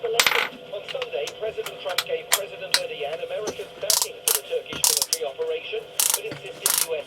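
Irregular ratcheting clicks from a cheap corded power drill being turned and worked by hand, louder and closer together near the end.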